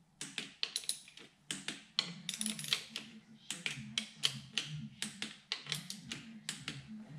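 Torque wrench ratcheting in short, irregular clicks as 6 mm clutch spring screws on a Ducati wet clutch are tightened to 10 newton metres.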